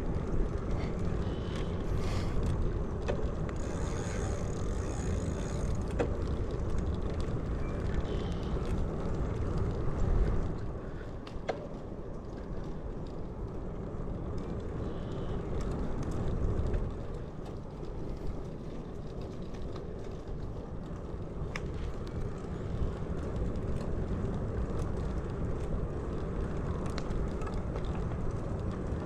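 Wind rushing over the camera microphone and road noise from a bicycle being ridden, a steady low rush that swells a little twice, with a few faint clicks.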